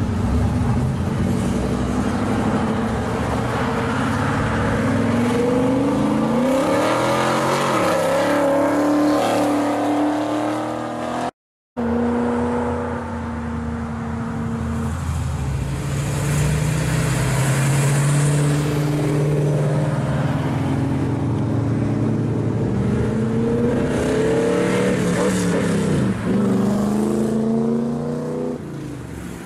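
Classic American cars accelerating away one after another, engines revving up with a rising note as each one pulls past, then settling. There is a brief gap a little over a third of the way in.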